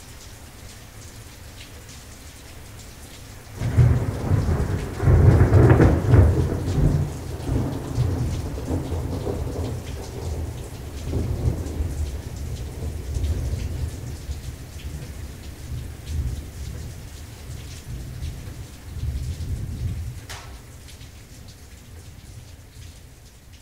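Thunderstorm: steady rain hiss, then a loud thunderclap about four seconds in whose low rumble rolls on in waves and slowly fades back to the rain.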